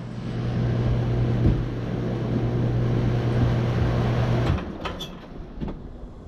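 Bryant Legacy Line air conditioner condenser running, with a steady electrical hum under the rush of air from its top fan. About four and a half seconds in, the hum cuts off abruptly and the air noise drops sharply.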